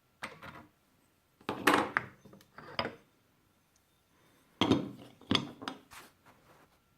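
Hard objects clinking and knocking in several short bursts of handling noise, with quiet gaps between.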